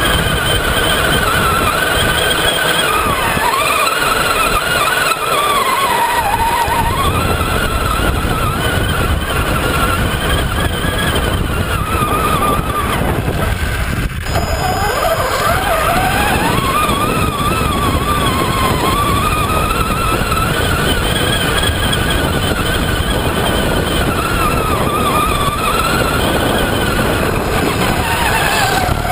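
Traxxas Summit RC truck's electric motor and drivetrain whining, the pitch rising and falling with the throttle, over a steady rush of tyres on sand and wind.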